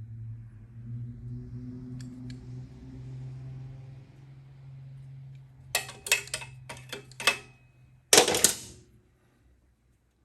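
Pliers and a wire's spade connector being worked by hand: a quick run of sharp clicks past the middle, then one louder clatter near the end, over a steady low hum.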